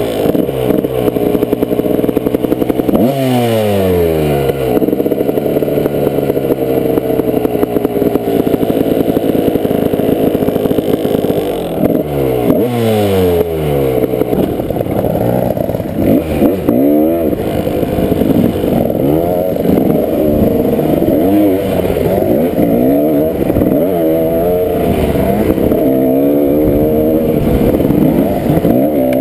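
Dirt bike engine heard from the bike itself while riding a rocky trail, the revs rising and falling constantly as the throttle is worked, with sharp rev sweeps about 3 and 12 seconds in.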